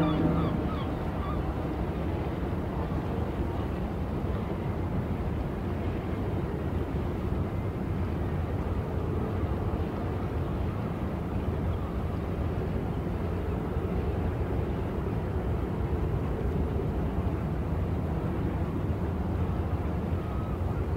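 Harbour ambience: a steady low engine rumble with a faint wash of water over it. The tail of a horn note dies away right at the start.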